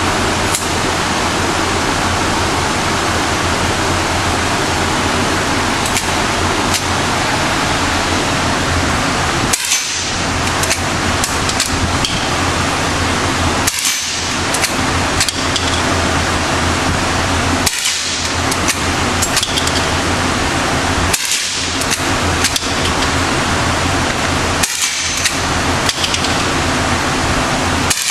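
Gunshots fired one at a time about every four seconds, six from about ten seconds in, each cut short with the sound briefly dropping out after it. Under them runs a steady, loud rushing noise.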